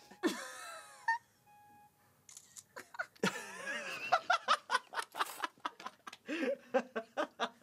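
People laughing hard in quick, choppy bursts from about three seconds in, after a short electronic beep from the Mac's Photo Booth countdown near the start.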